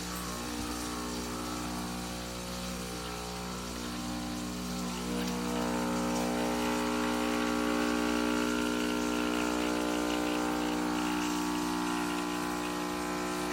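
Espresso machine's pump running during a double-shot brew: a steady, even hum with a pitched drone, getting a little louder about five seconds in.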